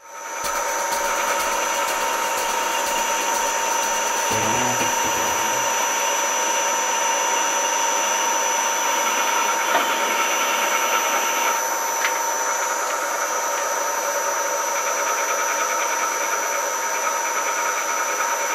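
Harrison M250 metal lathe running steadily with its chuck spinning, a constant machine whine with a thin high tone over it, while a boring tool works inside the bore of a tube.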